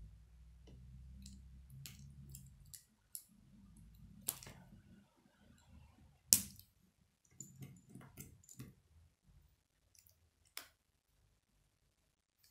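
K'nex plastic rods and connectors clicking as they are snapped together and fitted onto a small model, with low handling noise in the first few seconds. The single loudest click comes about halfway through.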